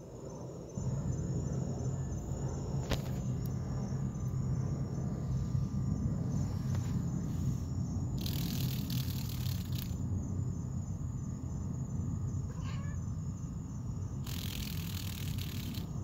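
Domestic cat purring steadily close to the microphone, with crickets chirping faintly in the background. Two short bursts of hissy noise come about halfway through and near the end.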